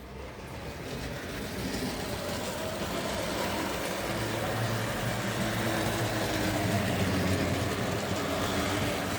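Tri-ang OO-gauge model train running on its track, a steady electric-motor hum with wheel and rail rumble. It grows louder over the first few seconds, then runs on evenly.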